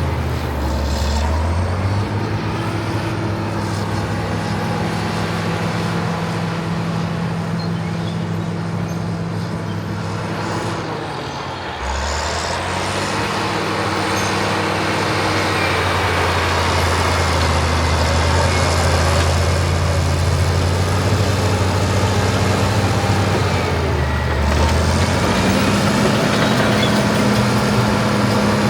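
Caterpillar D7 bulldozer's diesel engine running steadily, its note dipping and picking back up about twelve seconds in and again near the end.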